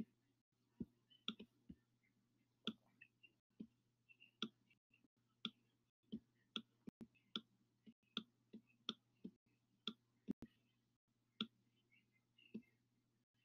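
Faint, irregular clicks of a stylus tapping and writing on a tablet screen, about two a second, over a faint steady low hum.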